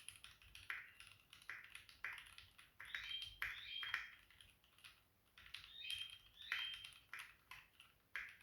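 Typing on a Keychron Q6 mechanical keyboard with Gateron G Pro Brown tactile switches: quick runs of key clacks at an uneven pace.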